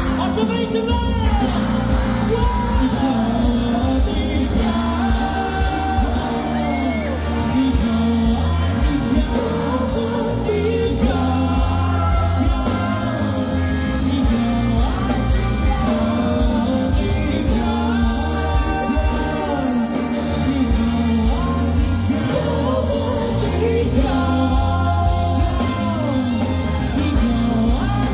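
Live pop-rock band playing a song: a sung lead vocal over electric guitars, a drum kit and keyboard.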